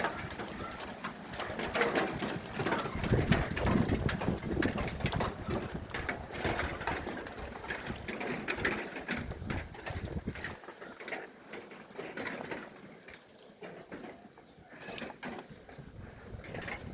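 Pigeons cooing, mixed with many irregular clicks and taps. The low cooing thins out about ten seconds in, leaving mostly the clicking.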